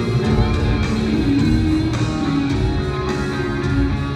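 Live heavy metal band performance in a stadium, with electric guitars to the fore, playing held, ringing notes over bass and drums.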